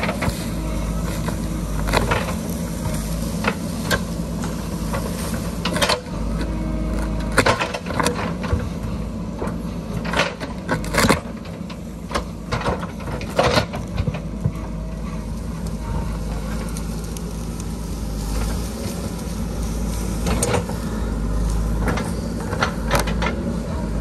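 JCB backhoe loader's diesel engine running steadily under load as the backhoe digs into a hillside, with scattered sharp knocks and cracks as the bucket tears through soil and tree roots.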